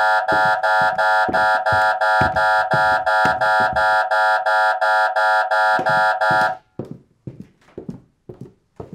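Electronic alarm going off in rapid, evenly pulsed beeps, about four a second, that stop suddenly about two-thirds of the way in. Footsteps go on underneath and continue as steady thuds, about two a second, once the alarm stops.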